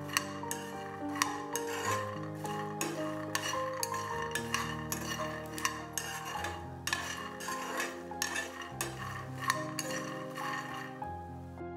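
Steel spoon stirring and scraping peanuts being dry-roasted in a steel frying pan: repeated clinks and rattles of spoon on metal and nuts shifting in the pan, stopping about a second before the end. Soft background music with sustained keyboard notes plays underneath.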